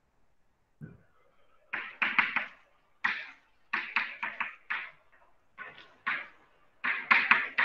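Chalk writing on a blackboard: a quick run of short scratchy strokes and taps as letters are formed, after a soft low thump about a second in.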